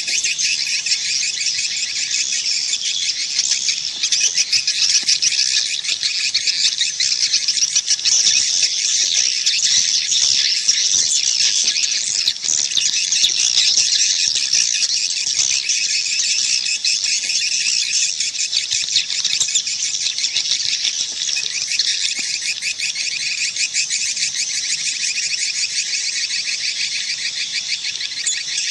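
Recorded swiftlet calls: a dense, continuous chorus of rapid, high-pitched twittering chirps. It is the kind of lure call played from swiftlet houses to draw swiftlets in to roost and nest.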